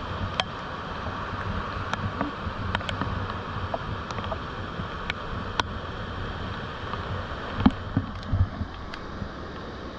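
Rain and surf heard through a GoPro's sealed waterproof housing: a steady, muffled rush with scattered sharp taps of raindrops striking the case. A few dull thumps come about eight seconds in and are the loudest sounds.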